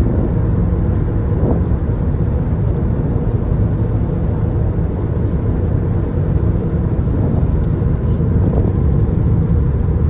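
Steady road noise of a 2017 Toyota Prius Prime cruising at freeway speed on a wet road: a constant low rumble of tyres and wind.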